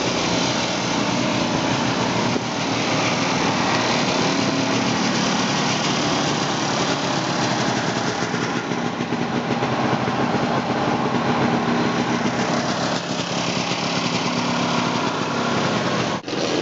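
Several single-cylinder two-stroke snowmobile engines running together, a loud, steady, dense buzz, with a brief break about a second before the end.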